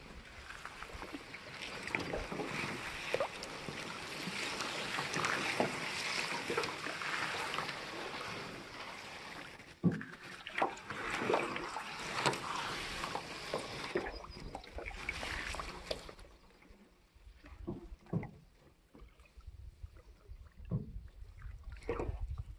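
Rushing water of river rapids, with sharp knocks and clunks from an aluminum canoe being bumped through them. About three-quarters of the way through the rushing stops abruptly, leaving scattered knocks and a low rumble.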